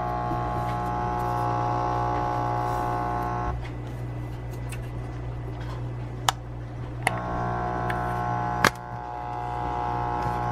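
Oster electric coffee grinder humming when switched on but not grinding, a sign that it is not working. The hum cuts off about a third of the way in, a few sharp clicks follow, and the hum comes back about two thirds of the way through.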